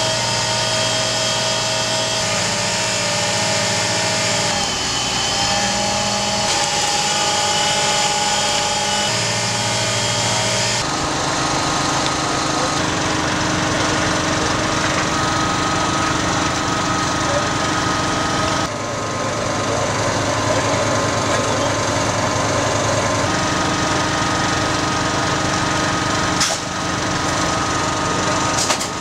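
A small engine or machine running with a steady drone. Its tone changes abruptly a few times, most clearly about 11 seconds in and again near 19 seconds in.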